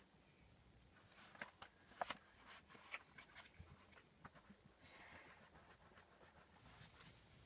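Faint writing on paper in a kanji workbook: short scratching strokes and light taps of the writing tip, starting about a second in.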